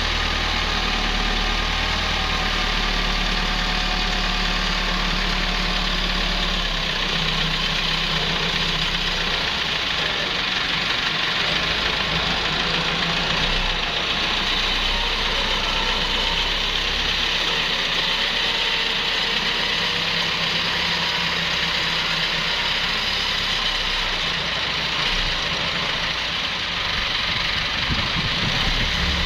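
Wheel loader's diesel engine running, its low note shifting about a quarter of the way in as the machine works.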